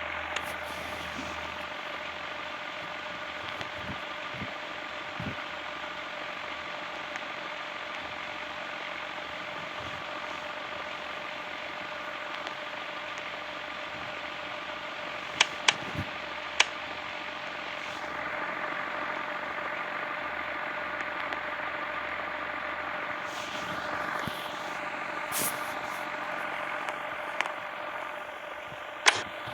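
Ceiling fan running steadily with some of its blades removed: a steady motor hum over an even whoosh of moving air. A few sharp clicks come about halfway through and again near the end.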